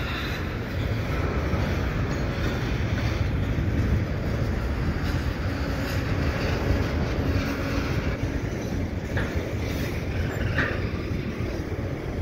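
Freight train rolling along the tracks, a steady low rumble of the locomotive and rail cars, slowing down. A faint held tone sounds for a few seconds in the middle.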